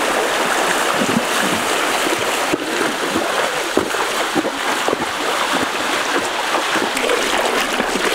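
Fast shallow stream rushing steadily, with splashes from a person wading and pulling a piece of meat through the current.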